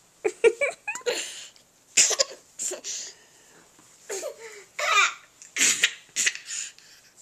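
A young child fake-coughing: a series of short, forced coughs, roughly one a second, mixed with laughing.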